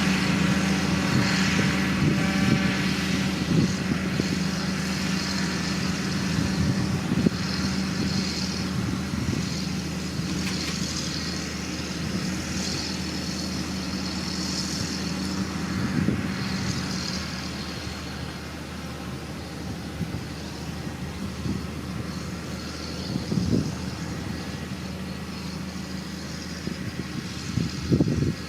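Heavy diesel engine of construction machinery running steadily with a low drone, with a few short clunks, growing gradually fainter.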